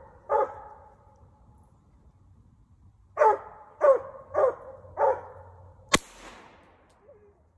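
Coonhounds barking treed at a raccoon: one bark just after the start, then after a pause four barks in quick succession. A single sharp gunshot follows near the end as the hunter fires up the tree at the raccoon.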